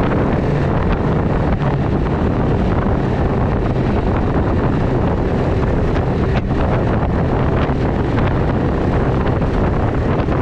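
Ski-Doo snowmobile engine and track running steadily at trail-riding speed, with heavy wind buffeting on the microphone.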